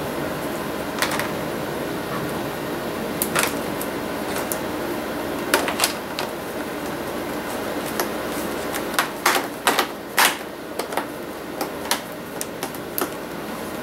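Plastic screen bezel of a laptop display being pressed back onto the lid, its clips snapping into place with sharp clicks. The clicks are scattered at first and come thick and fast in the last few seconds, over a steady hum.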